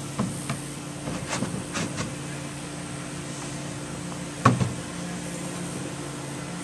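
Hard knocks and clicks of modular boat hull parts being handled and fitted together: a few light ones early, then one louder knock about four and a half seconds in, over a steady low hum.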